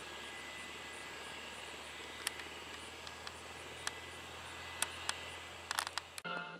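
Airbus H135 (Eurocopter EC135) twin-turbine helicopter running on the ground after landing, its rotor turning: a steady, fairly faint hum with a thin high whine. A few sharp clicks sound here and there, and about six seconds in the helicopter sound cuts off suddenly.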